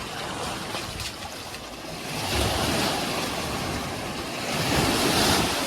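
Sea waves washing up on a sandy beach, the surf swelling louder about two seconds in and again near the end.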